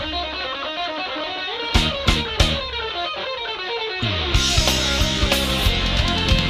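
Instrumental passage of a Japanese rock song: a guitar line with a few sharp drum hits. About four seconds in, the full band comes in louder, with bass and cymbals.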